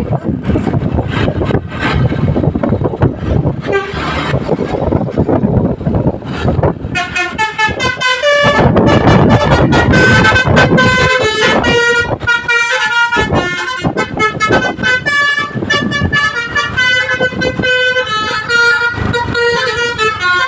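A bus's Basuri 'telolet' multi-tone horn playing a quick melody of short, changing toots, starting about seven seconds in over the noise of the passing vehicle and wind on the microphone.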